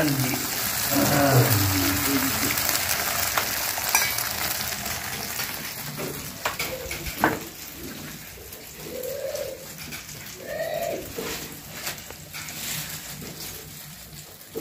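An omelette sizzling in hot oil on a flat iron tawa over a wood fire, the frying hiss loudest in the first few seconds and then fading. A sharp knock about seven seconds in, and near the middle a dove cooing twice.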